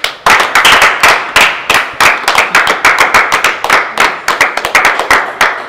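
A few people clapping their hands, loud and fast, several claps a second, stopping near the end.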